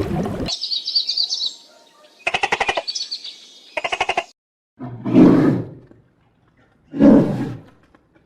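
A run of animal calls: brief high chirping, two short rapid rattling trills, then two loud low roars from a large animal, about two seconds apart.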